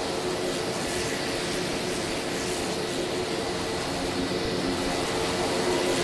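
Aircraft engines running with a steady drone: an even rush with a few constant tones in it.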